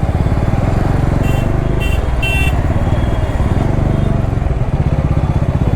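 Bajaj Dominar 400's single-cylinder engine running steadily at low speed in traffic, with vehicle horns tooting three times, briefly, about a second in, the last toot the longest.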